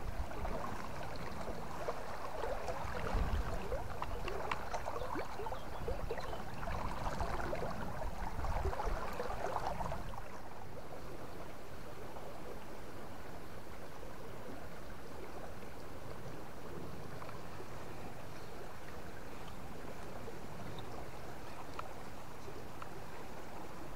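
River water running steadily over a shallow stretch, with irregular sloshing and low rumbling during roughly the first ten seconds that then settle into the even sound of the flow.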